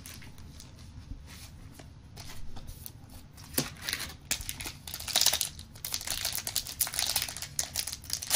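Foil wrapper of a trading-card booster pack crinkling as it is handled and torn open by hand. The crackling rustle is faint at first and grows louder and busier over the second half.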